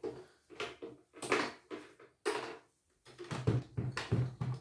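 Clicks and knocks of hands working on an embroidery machine's head and covers as it is being taken apart, with a run of heavier knocks near the end.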